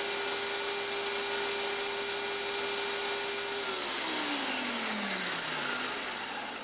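Ninja food processor's motor running steadily on medium, whirring as it purées green chilies and cilantro to a salsa-verde consistency. About halfway through it is switched off and the motor winds down, its whine falling in pitch and fading.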